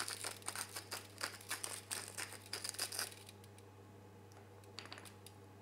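Salt and pepper being ground over oil in a baking tray: a quick run of dry, crunchy crackling clicks for about three seconds, then a couple of faint clicks near the end.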